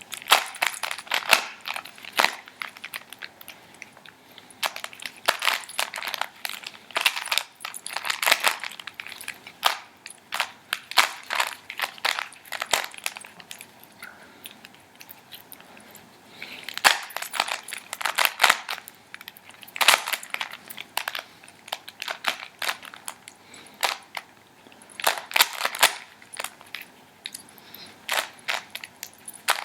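Rubik's cube being turned by hand while it is solved: rapid clicking of the plastic layers in runs of quick moves, broken by short pauses between runs.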